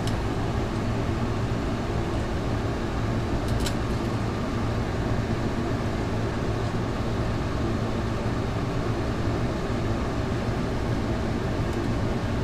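A steady low mechanical hum, even throughout, with one faint click about three and a half seconds in.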